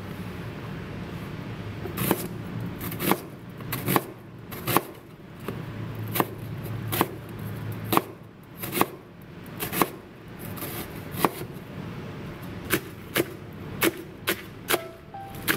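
Kitchen knife slicing half a red onion on a plastic cutting board, each cut ending in a sharp knock on the board, roughly one every half second to second. After a short pause near the end comes a quicker run of chops through green stalks.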